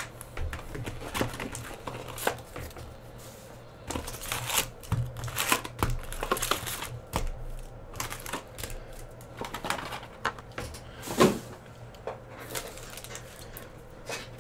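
Cardboard Upper Deck hockey card hobby box being torn open along its perforated strip and its lid flaps opened, with irregular clicks, taps and rustling as the box and the packs inside are handled. A sharp tap at the very start and a louder one about eleven seconds in.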